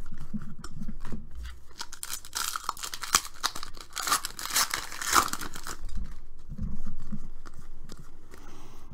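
Foil wrapper of a pack of basketball trading cards being torn open by hand and crinkling, from about two seconds in to about five and a half. Before and after, cards are flicked and slid through by hand with light clicks.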